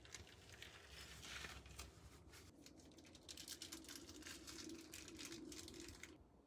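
Faint, scratchy rustling and crackling that stops about six seconds in.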